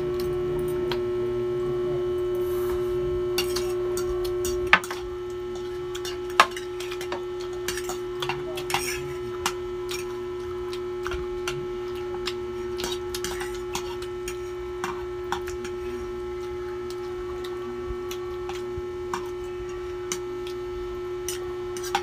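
A steady electrical hum, which drops in level about five seconds in after a sharp click. Over it, scattered light clicks and clinks of forks and spoons against plates as people eat noodles.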